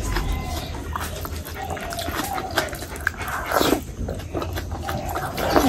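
Close-miked eating sounds of rice and curry eaten by hand: wet chewing, lip smacks and clicks, with two louder mouth sounds, one a little past halfway and one near the end.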